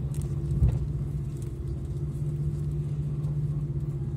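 Cabin noise inside an Airbus A340 taxiing: a steady low engine hum over rumble, with a single thump about half a second in.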